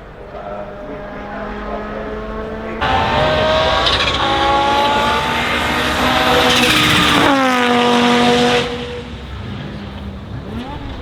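Audi Sport Quattro S1 E2's turbocharged 2.1-litre five-cylinder engine accelerating hard. It turns loud about three seconds in, with the pitch climbing and dropping at the gear changes. The pitch then falls steeply, and the sound dies down about eight and a half seconds in.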